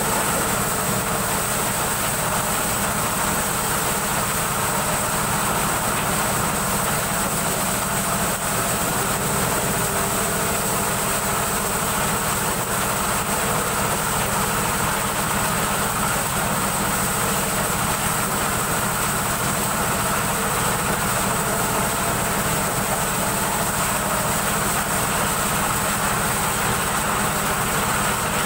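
Engine-driven corn sheller running steadily at full speed while corn cobs are fed into its hopper, the engine and threshing drum making a constant drone with a steady high whine.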